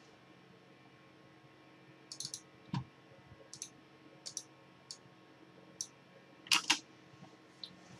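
Sparse, quiet computer mouse and keyboard clicks, one or two at a time. There is a soft thump about three seconds in and a louder close pair of clicks about six and a half seconds in.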